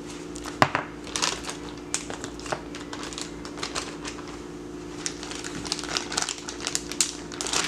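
Plastic zip-top bag crinkling and crackling in irregular bursts as it is handled and sealed with flank steak and marinade inside, with a sharper click about half a second in.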